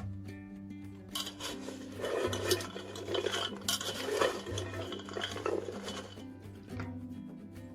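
Dishes and cutlery clinking and scraping, busiest in the middle few seconds, over quiet background music.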